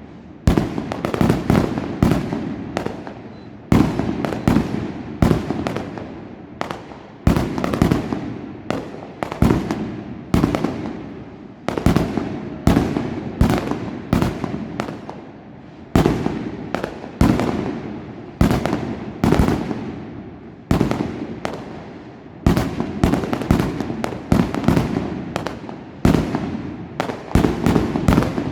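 Fireworks going off in quick succession: a dense run of sharp bangs, a big one every second or two, each dying away in a rumbling echo.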